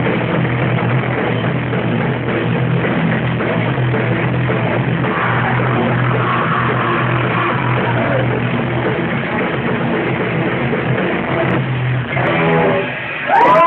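Live rock band playing loud, with distorted electric guitars and a drum kit; the music drops away near the end.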